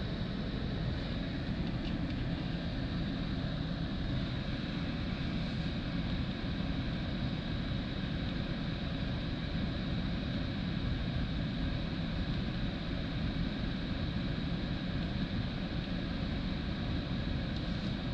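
Steady, even drone inside the cabin of a 2020 Mazda CX-30 with its 2.5-litre four-cylinder engine running, low-pitched with a faint steady high tone above it.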